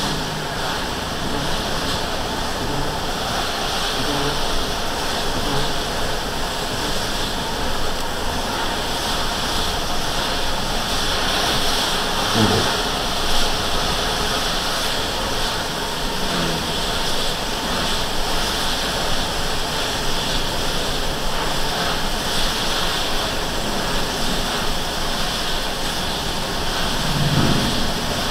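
Steady road noise inside a vehicle driving on a wet highway in rain: tyres hissing on the soaked pavement. A couple of brief low sounds stand out, about halfway through and near the end.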